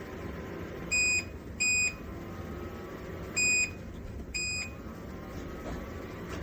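Four short, high electronic beeps from a JIBUFI 1500W PTC space heater's control panel as its buttons are pressed, over the steady hum of the running heater.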